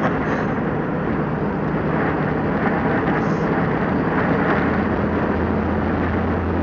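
Steady road and wind noise inside a car's cabin at highway speed, with a low engine drone that grows stronger about halfway through.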